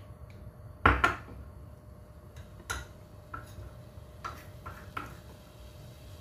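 Spoon knocking against a cooking pot and bowl as curry paste is spooned into the pot: two sharp knocks about a second in, then several lighter taps.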